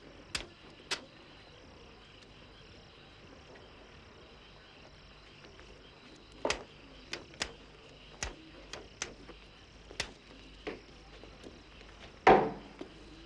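Crickets chirping steadily in the background, with scattered sharp clicks and knocks at irregular intervals and a louder knock about twelve seconds in.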